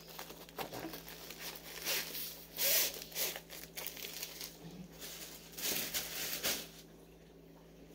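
Packaging crinkling and rustling as a rolled canvas and its wrapper are handled, in several short bursts, the loudest about three seconds in, then quieter for the last second.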